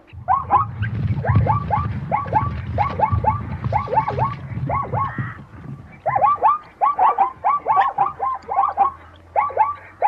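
Zebra barking: runs of short, quick yelping calls, several a second, with a low rough grunting underneath in the first half. The barks break off about five seconds in, then start again.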